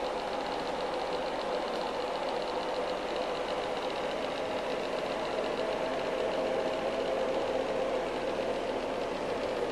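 Steady mechanical whirring hum with a fine, fast, even texture, like a small motor or fan running continuously.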